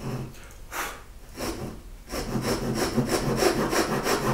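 Japanese pull saw cutting into a wooden board: a few slow, light strokes to start the kerf, then steady, rapid sawing strokes, about four a second, from about two seconds in.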